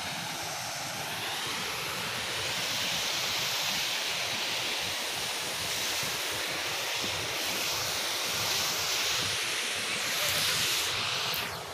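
Steady rushing of a rain-swollen stream pouring over a weir, an even, hissing water noise.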